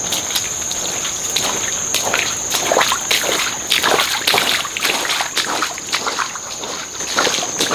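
Water sloshing and splashing in irregular strokes, over a steady high-pitched insect trill.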